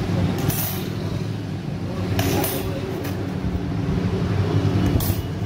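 Workshop machinery running with a steady electric-motor hum, broken by a few short hissing bursts.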